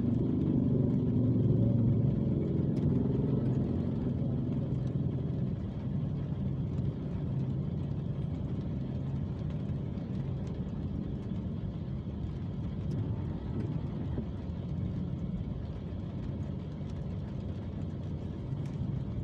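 Traffic idling at a standstill: the low, steady hum of motor scooter and car engines heard from inside a car. It is louder for the first few seconds, then settles lower, with faint ticks of rain on the windshield.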